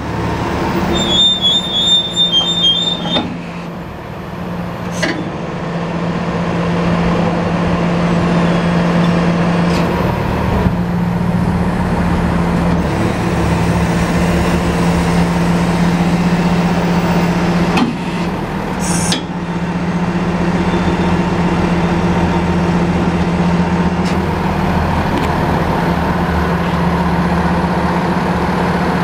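Engine of a heavy diesel service truck running steadily with a constant hum. A rapid high-pitched beeping sounds for about two seconds near the start, and there are a couple of sharp clicks later on.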